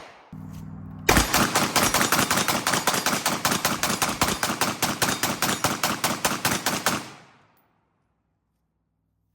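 A long rapid string of gunshots, about eight shots a second for roughly six seconds, that stops abruptly.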